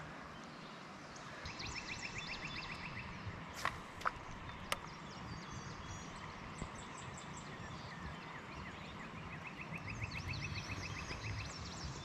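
Quiet outdoor river ambience: a faint steady hiss, with a rapid trill of evenly spaced high notes heard twice, once about a second in and again near the end. A few sharp clicks fall around the middle.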